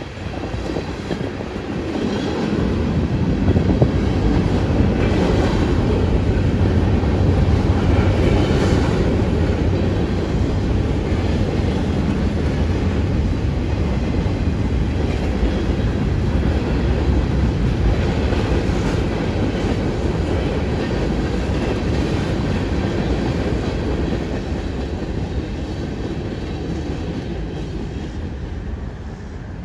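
Freight train of tank cars and covered hoppers rolling past: a steady rumble with wheel clatter on the rails, growing louder about two seconds in and fading near the end.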